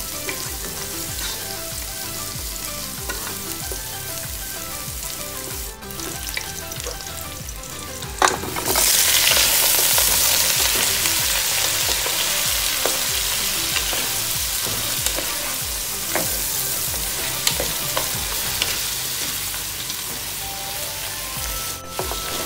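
Sliced onions and garlic sizzling in hot oil in a pot, stirred with a wooden spatula. About eight seconds in, pre-boiled beef chunks go into the pot and a much louder sizzle starts, then eases off gradually as the meat is stirred.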